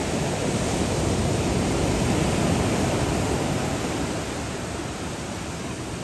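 Ocean surf washing on the beach: a steady rushing noise that swells a little and then eases toward the end.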